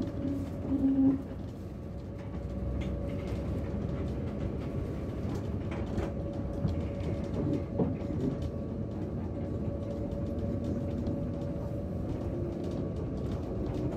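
Tram running, heard from inside the passenger car: a steady rumble with a constant motor whine, and a brief louder tone about a second in.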